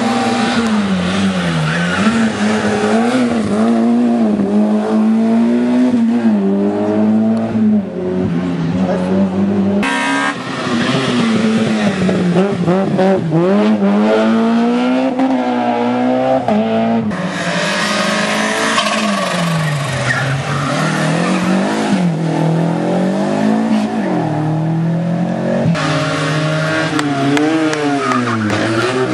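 Slalom race car engines revving hard and easing off again and again as the cars weave through the gates, the pitch rising and falling every second or two. The sound changes abruptly three times, as one run's footage cuts to another.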